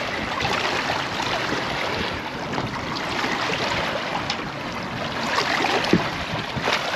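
Water splashing as a hooked sturgeon thrashes at the surface alongside a boat, with a few sharper splashes in the second half, over steady wind noise on the microphone.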